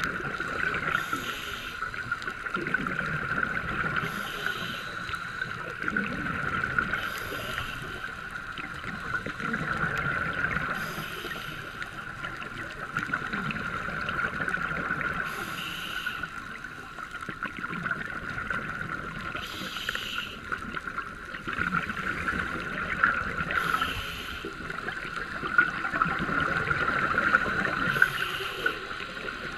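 Scuba regulator breathing heard underwater: a burst of bubbling about every four seconds as the diver exhales, over a steady hiss.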